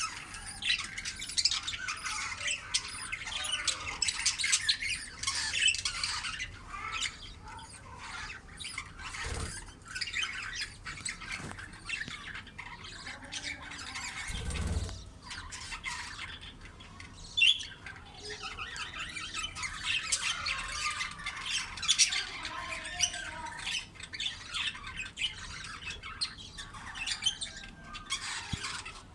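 Budgerigars, a mother and her chicks, squawking and chirping in a dense, continuous chatter of rapid calls: chicks begging as they are fed. Two dull thumps break in, about nine and fifteen seconds in.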